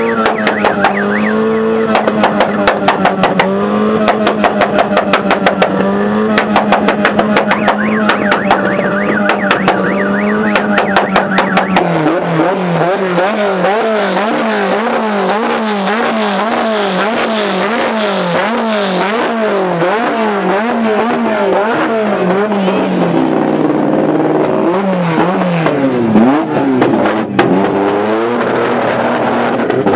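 A modified Proton Satria's engine and exhaust revved hard. It is held at a steady high pitch with rapid popping for the first dozen seconds, then revved up and down about twice a second, then run lower and more unevenly near the end.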